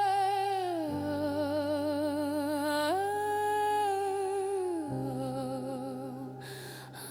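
Background music: a wordless hummed vocal melody of long held notes with vibrato, sliding between pitches, over sustained low chords that change twice.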